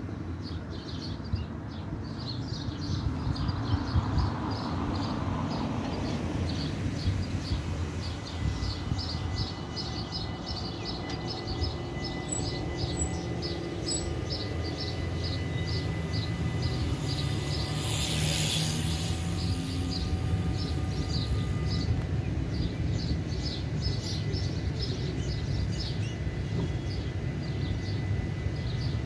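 Level-crossing warning bells ringing in a fast, steady strike of about three or four a second while the half-barriers lower for an approaching train. A vehicle passes about three to six seconds in, over a low traffic rumble.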